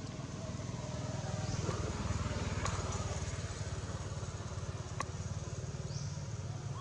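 A small engine running with a low, steady, pulsing rumble that grows a little louder about two seconds in; two sharp clicks sound over it.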